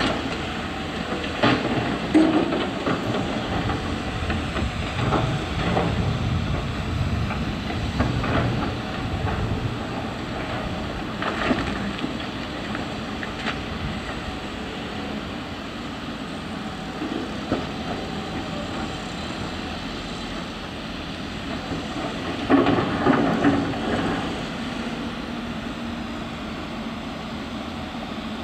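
Volvo 210B tracked excavator's diesel engine running steadily under load, with irregular metallic clanks and knocks as the bucket works rocky ground. The loudest bunch of knocks comes about two-thirds of the way through.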